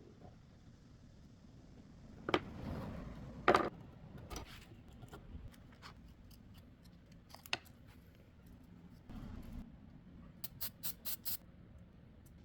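Workshop handling noises with no saw running: a few sharp knocks and clicks, two short scraping rubs, and a quick run of five crisp strokes near the end.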